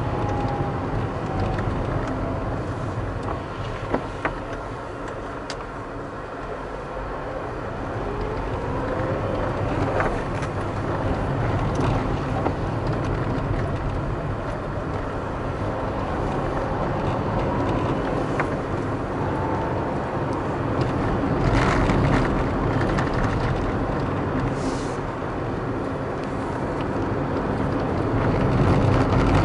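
Car driving on city streets: steady engine and tyre road noise, with the engine note rising several times as the car speeds up. There is a brief louder rush about two-thirds of the way in.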